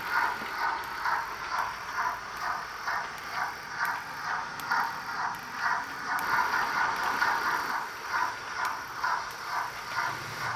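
OO-gauge Hornby Britannia 4-6-2 model's DCC sound decoder playing steady steam-locomotive exhaust chuffs, about three a second, through its small onboard speaker.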